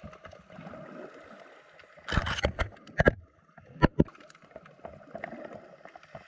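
Sea water sloshing and lapping, with a few sudden louder splashes or knocks between about two and four seconds in.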